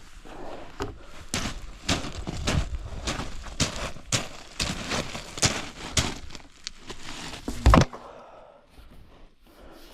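A quick run of knocks and thuds, two or three a second, ending in one heavy thump about three-quarters of the way through.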